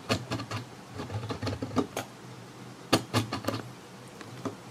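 Irregular light clicks and knocks from a hand-built wooden mini drill press as its sliding drill carriage is worked by hand to lower the bit into a hole, with clusters of quick clicks about a second in and again near three seconds, over a low steady hum.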